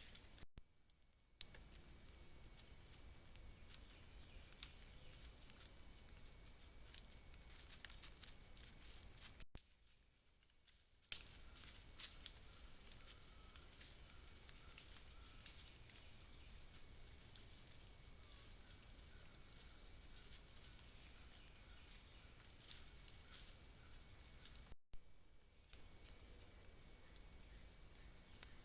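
Faint chorus of crickets: a high, evenly pulsing chirp with a few light clicks. It drops out briefly three times.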